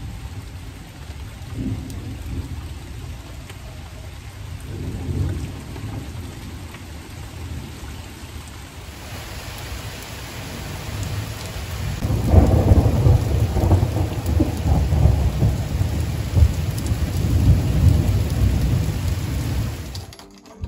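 Rain falling steadily, with rolls of thunder: a couple of short low rumbles early on, then a longer, louder rumble of thunder that starts about halfway through and lasts several seconds.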